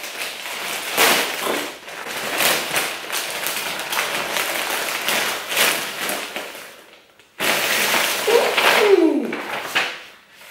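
Thin plastic mailing bag being ripped open by hand and crinkled, a rough crackling and tearing in repeated pulls, with a brief pause about seven seconds in.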